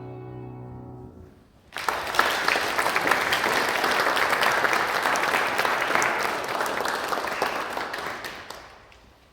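The last sustained chord of violins and piano dies away, then about two seconds in an audience breaks into applause, which tapers off near the end.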